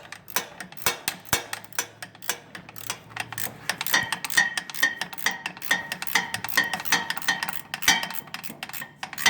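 Ratchet wrench clicking as a nut is tightened on a bolt, with rapid metallic clicks. From about four seconds in, a ringing metallic tick repeats about three times a second.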